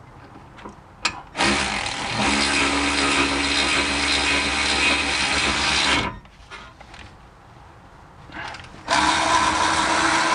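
Cordless power tool running on a front brake caliper bolt in two steady runs, the first lasting about four and a half seconds and the second starting near the end, with a quieter gap and a few clicks between them.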